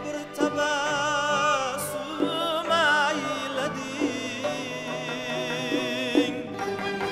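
A male singer holds long, heavily vibrato notes over an Uzbek folk-instrument orchestra with bowed strings. About halfway through, the voice drops away and the orchestra plays on.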